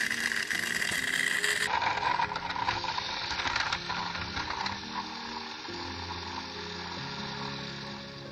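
Battery-powered toy train motor whirring, loudest in the first five seconds and then easing, over background music of low held notes.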